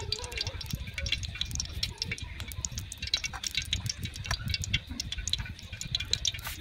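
Hands coating frogs in flour on a ceramic plate: irregular light clicks and taps over a low rumble.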